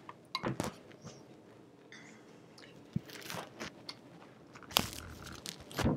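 Scattered knocks, clicks and scrapes from handling a vintage Kenmore sewing machine as it is tipped onto its side, with the loudest knocks near the end.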